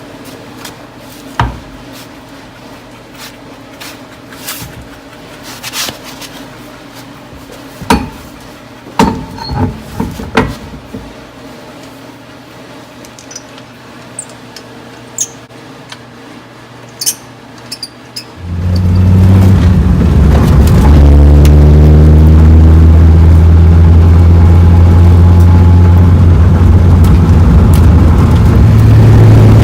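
Low hum with scattered knocks and clicks, then about eighteen seconds in a BMW E36's engine suddenly comes in very loud and keeps running, its pitch steady apart from a few small steps.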